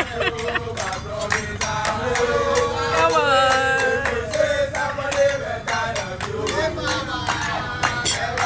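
A group of men singing a birthday song together in chorus, with steady rhythmic hand clapping.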